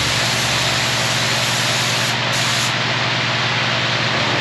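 Gravity-feed spray gun hissing steadily as it sprays polyurethane paint onto a guitar body, with a steady low hum underneath. The highest part of the hiss thins briefly about two seconds in.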